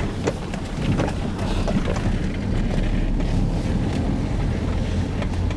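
Vehicle cab noise while driving slowly along a rutted dirt track: a steady low engine hum under road noise, with a few light rattles in the first couple of seconds.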